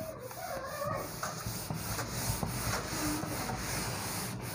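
Cloth wiping marker writing off a whiteboard: steady rubbing, with a few faint squeaks in the first second or so.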